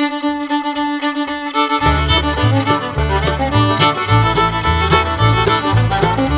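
Instrumental background music: held melody notes at first, then a bass line and steady beat come in about two seconds in.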